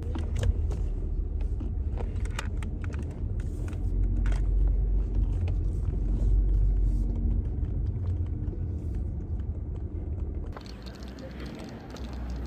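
Low rumble of a moving vehicle, with light rattles and clicks over it.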